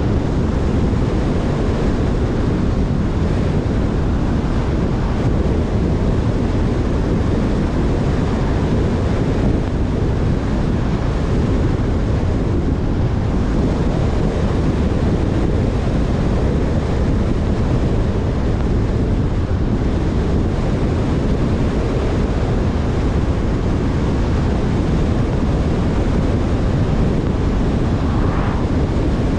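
Steady wind and tyre noise of a car driving at road speed. Near the end an oncoming car passes with a brief whoosh.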